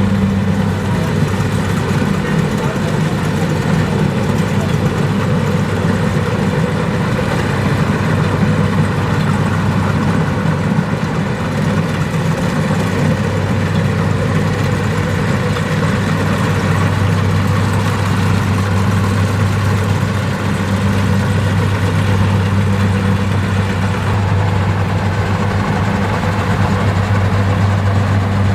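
Kubota DC-70 combine harvester's diesel engine running steadily, its low hum a little stronger in the second half.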